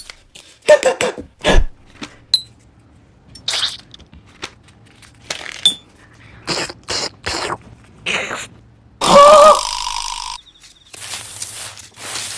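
A string of short, separate crunching bites of mock ASMR eating, with a brief voiced cry about nine seconds in and a steadier rasping noise in the last second or so.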